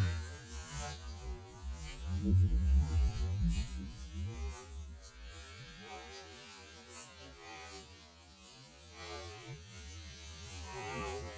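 Low droning hum, swelling louder about two to three and a half seconds in, then fading lower.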